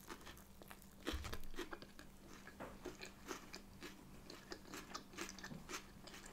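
A person biting into and chewing a crisp-coated plant-based no-chicken piece, with many short crunches from the breading. The loudest crunching comes about a second in.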